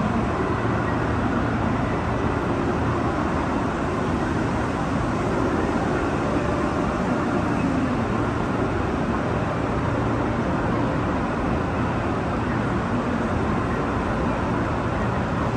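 Steady ambient din of a busy railway station: an even, rumbling wash of noise with no distinct event standing out.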